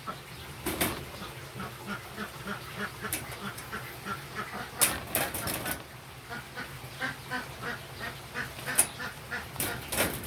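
A bird calling in quick runs of short repeated notes, about five a second, twice, with a few sharp rustling clicks between.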